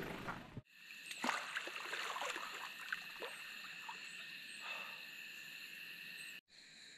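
Evening chorus of frogs and insects, a steady high-pitched drone with a few short chirps, over faint splashes of water from a person sitting in a flooded creek.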